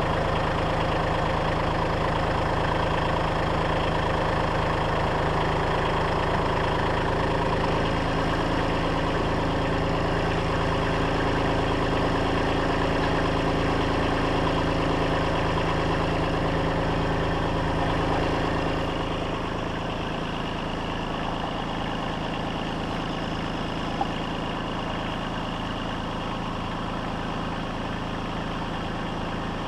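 An engine running steadily, a little quieter from about two-thirds of the way through, with one short click near the end.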